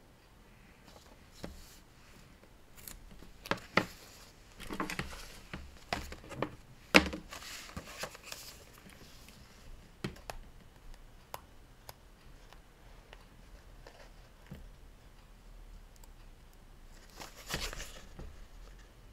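Paper being handled and rustled, with scattered light taps and clicks, busiest a few seconds in and again near the end.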